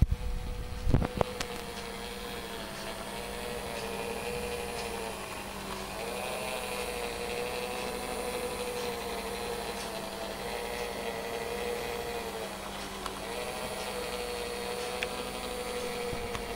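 Small electric motor of a Lemax animated skating pond running, a steady whining hum whose pitch sags briefly about every seven seconds as the skater figures are carried round. A couple of sharp clicks about a second in.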